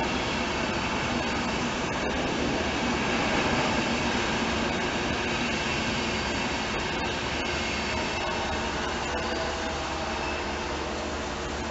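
Long-distance passenger train's coaches rolling past on the rails, a steady rumble of wheels on track with a few faint clicks.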